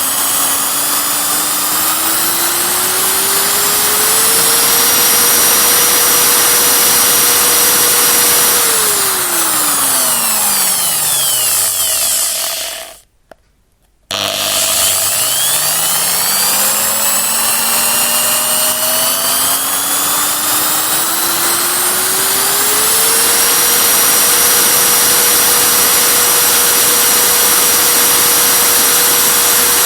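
Electric drill motor spinning up to full speed, running steadily, then winding down to a stop about twelve seconds in. After a second or so of silence it starts again, rising slowly to full speed and running steadily.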